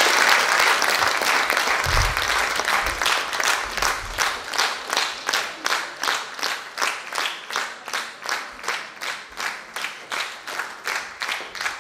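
A group of people applauding. The scattered clapping soon falls into steady rhythmic unison clapping, about three claps a second, slowly getting quieter.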